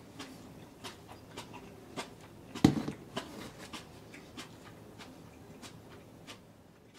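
A steady ticking, about two sharp ticks a second, over a faint low hum, with one much louder knock about two and a half seconds in.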